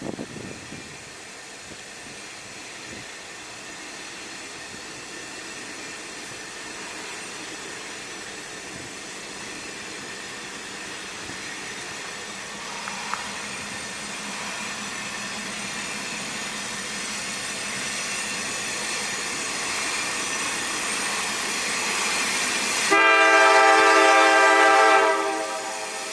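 Diesel freight train approaching, its sound growing steadily louder, then a loud locomotive air horn blast lasting about two seconds near the end.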